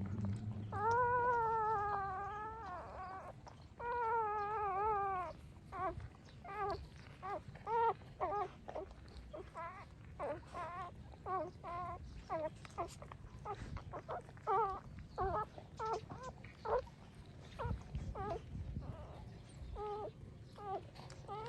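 Young puppies whining: two long, wavering cries in the first five seconds, then a quick run of many short, high squeaks.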